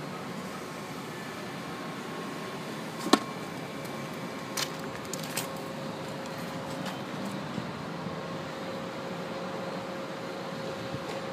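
Steady distant city traffic noise heard from a high-rise rooftop, with a faint steady hum, one sharp click about three seconds in and a couple of fainter clicks soon after.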